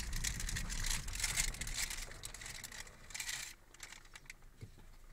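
Handling noise: a phone's microphone rubbing and scraping against skin and clothing as it is held close to the body, crackling densely for about three and a half seconds and then thinning out. A low rumble underneath fades out about halfway through.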